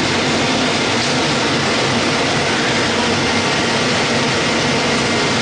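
Industrial vegetable dicing line running: steady machine noise from the dicers and conveyor belts, with a faint steady hum.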